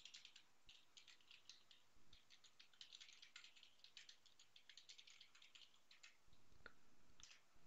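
Faint typing on a computer keyboard: quick, irregular key clicks, with a faint low hum coming in about six seconds in.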